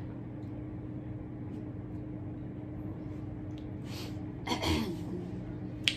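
A steady low hum of room noise. About four and a half seconds in there is a short breathy vocal sound from a person, and a sharp click comes just before the end.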